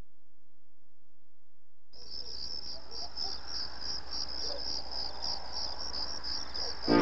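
Crickets chirping in a steady pulsing rhythm, coming in about two seconds in after near silence, with music starting at the very end.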